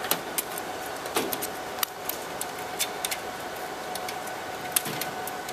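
Scattered light clicks and taps from hands handling the metal riser bracket of a Dell PowerEdge 2800 server and fishing a cable through it, the sharpest click near the end, over a steady background hum.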